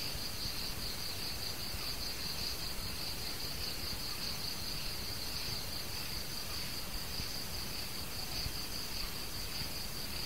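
Insects, like crickets, trilling steadily at a high pitch over a constant background hiss.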